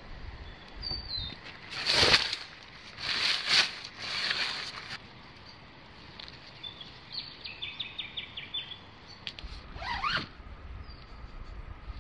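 Tent zipper and nylon tent fabric being worked while pitching a tent: three quick zipping strokes between about two and five seconds in, and a softer rising one near the end. Birds call faintly in between.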